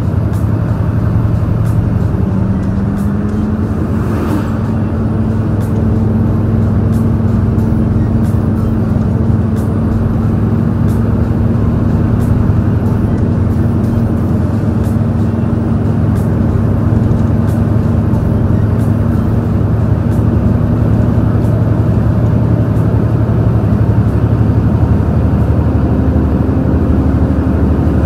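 Large truck's diesel engine with stock exhaust pulling hard uphill at full throttle, a steady heavy drone heard from the cab through a slightly open window, with road noise. Its pitch rises slightly about two and a half seconds in.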